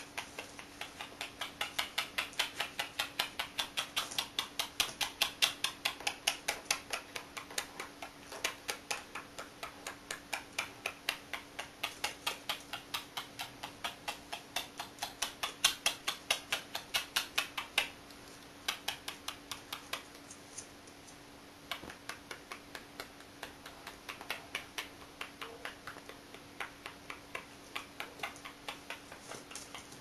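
Blue Quaker parrot (monk parakeet) making a long string of quick kissing clicks with its beak at a person's hand, about three or four a second, swelling and fading, with a couple of short breaks partway through.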